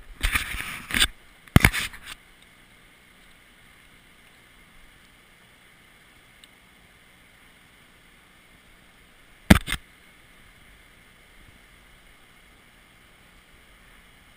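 Rustling, scraping handling noise on a body-worn camera in the first two seconds, then one short sharp knock about nine and a half seconds in, over a faint steady rush of a rocky stream.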